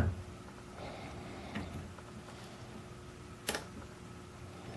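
Faint light clicks of a lock pick working the pins of a Weiser interchangeable-core lock under tension, with a sharper click about three and a half seconds in.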